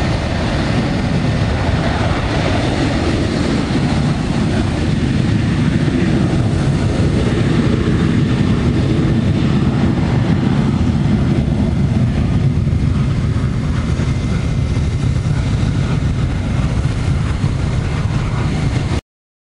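Boeing 737-800's CFM56 turbofan jet engines at takeoff thrust during the takeoff roll, a steady loud roar heavy in the low end, cutting off abruptly near the end.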